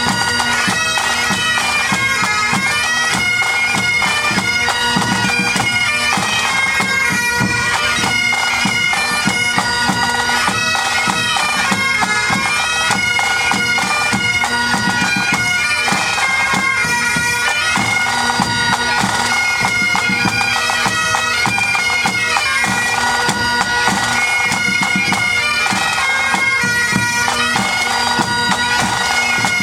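Pipe band playing: Great Highland bagpipes sounding a tune over their steady drones, with drums beating along throughout.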